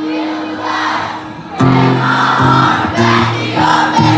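Acoustic guitar with a crowd cheering over it: a held chord rings on, then steady strumming starts again about a second and a half in.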